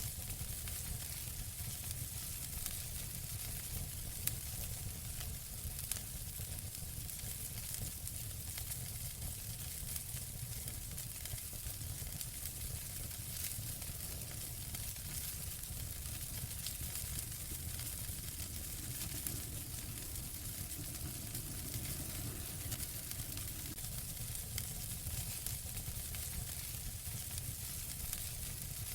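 Wood fire burning in a fireplace: a steady hiss and low rumble of flames with constant small crackles and a few louder pops.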